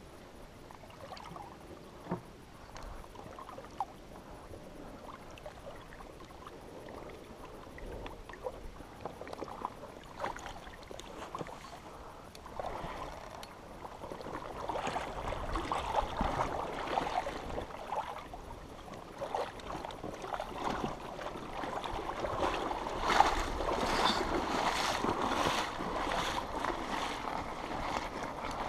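Shallow water sloshing and splashing as a stalled dirt bike is walked through it by a wading rider, with no engine running. The splashing grows louder in the second half and ends in a run of separate splashes near the end.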